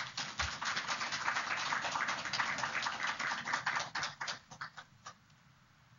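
A small audience applauding, with single claps still distinct, dying away about five seconds in.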